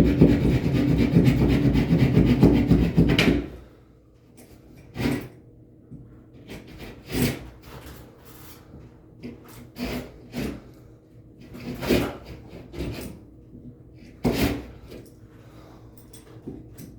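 A loud rasping scrape for about the first three seconds, then scattered short knocks and clunks, like work noise at an installation job.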